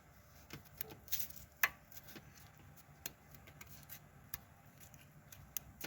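Faint, sparse metallic clicks and taps from hands working on an open engine block with the cylinder head removed. The sharpest tick comes about one and a half seconds in.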